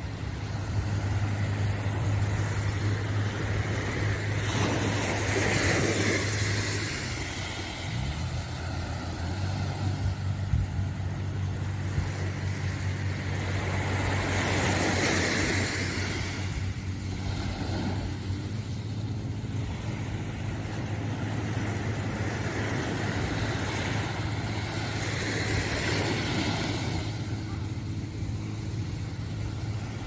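Small waves washing up on a sandy beach, three swells about ten seconds apart, over a steady low engine hum that drops out briefly about seven seconds in.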